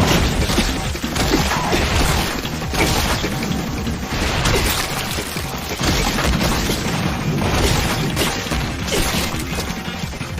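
Anime fight sound effects: a dense run of crashes, smashes and heavy booming impacts over a music score.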